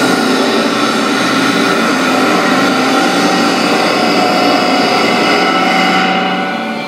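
Clansman Dynamics G30P grinder's abrasive disc grinding hard into a large metal workpiece: a steady, loud grinding with a whine in it. It eases off about six seconds in as the disc comes off the work.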